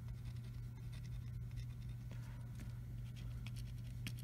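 Pen scratching faintly on a paper worksheet, drawing short dashed lines in a few quick strokes, over a steady low hum.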